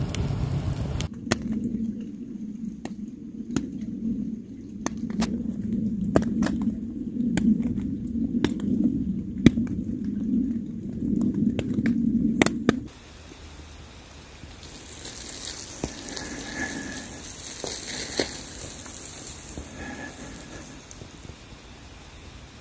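Fire crackling, with many sharp pops over a low steady rumble; about two-thirds of the way through it cuts off suddenly to a quieter, steady outdoor hiss with two faint, short high notes.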